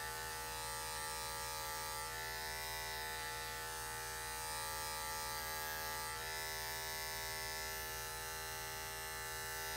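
Corded electric dog grooming clippers fitted with a #40 blade, running with a steady buzz while shaving a dog's coat.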